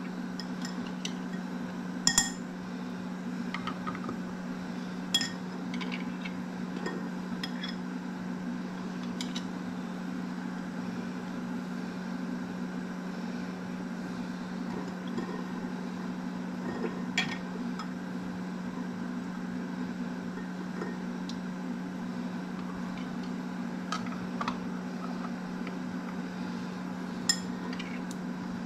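Occasional sharp clinks of metal and plastic against glass, about five in all, as reusable canning lids and metal screw bands go onto glass jars of potatoes. A steady low hum sits underneath.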